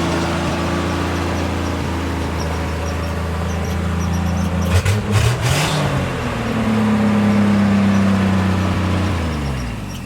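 Truck's carbureted engine running on a newly installed carburetor, idling a little high, with a brief rev up and back down about five seconds in; near the end the engine note drops and dies away.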